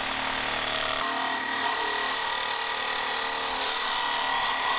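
Reciprocating saw running steadily, its blade cutting through the steel of a leaf-spring shackle to get past shackle bolts that won't come out.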